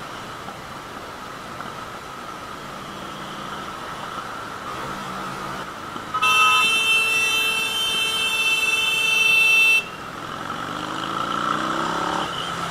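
A vehicle horn blown in one long held blast of about three and a half seconds, starting about six seconds in, over steady motorcycle engine and road noise. Near the end the engine note rises as the bike accelerates.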